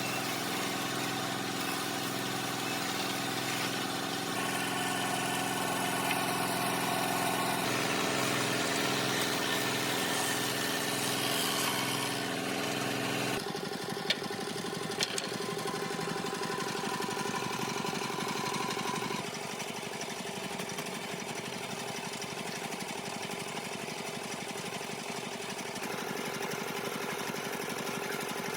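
Power woodworking tools running steadily. The motor tone changes abruptly several times as one machine or cut gives way to another, with two sharp clicks about halfway through.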